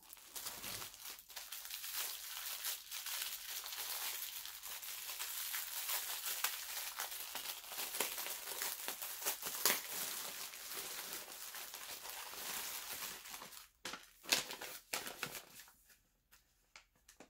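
Clear plastic wrap on a rolled diamond-painting canvas crinkling as it is worked off by hand, a continuous crackle of small snaps. Near the end it breaks into a few separate rustles and then stops.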